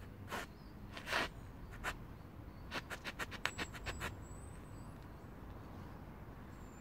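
Soft soles of plush slippers scuffing on concrete a few times as the feet shift, followed about three seconds in by a quick run of about ten sharp clicks.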